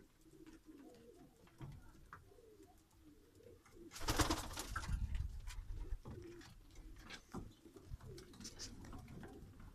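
Fancy domestic pigeons cooing in a loft, low warbling coos throughout. A brief loud rustle about four seconds in.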